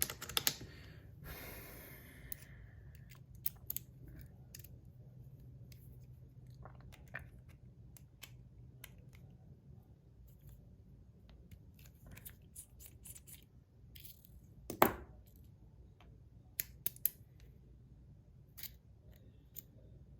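Scattered small metal clicks and taps from a stainless-steel-bodied Rapt fidget slider being taken apart by hand, with a brief scraping about a second in and one louder clack about three-quarters of the way through.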